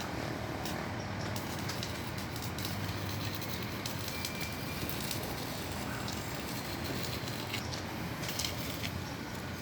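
Electric arc welding on pipe: a steady crackling sizzle from the arc.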